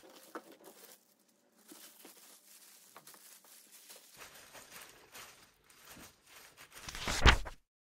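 Faint rustling and squelching of plastic-gloved hands pressing sauce-coated green onions into a plastic tub, with a louder burst of handling noise near the end.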